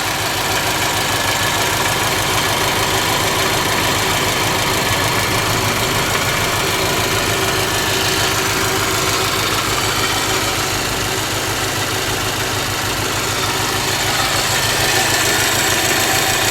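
Engine idling steadily with a regular knock, which the owner suspects may be a worn engine bearing shell.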